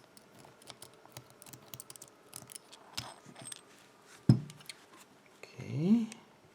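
Small metal clicks and scrapes as a padlock is taken apart by hand to remove its lock core. There is one sharper knock about two-thirds of the way through and a short rising tone near the end.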